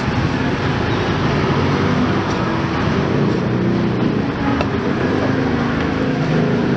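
Steady street traffic noise with a low rumble, and a few faint knocks of a cleaver coming down on a wooden chopping board.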